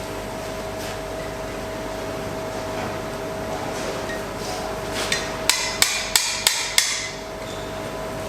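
Hand hammer striking hot iron on an anvil: a quick run of about six ringing blows some five seconds in, over a steady hum.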